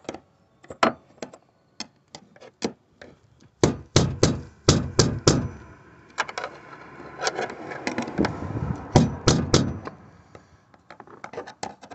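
Screwdriver knocking and scraping against the locking ring of a 2002 Cadillac Escalade's fuel pump module, being driven round to get it past its retaining clip. Irregular sharp knocks and clicks, heaviest about four to five seconds in and again around nine seconds, with scraping between about six and ten seconds in.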